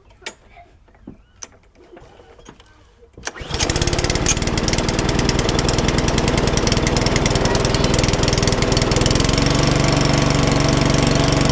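Four-stroke petrol lawnmower engine, on choke, catching about three seconds in and then running at a steady speed. It runs now that it has a known-good spark plug, after failing to start on its own cheap plug, which turns out to be the fault.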